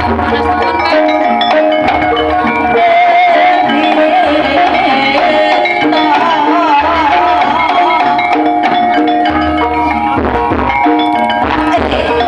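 Javanese gamelan-style music played loud through a sound system: ringing metallophone tones over a steady low drum beat, with a wavering melodic line in the middle.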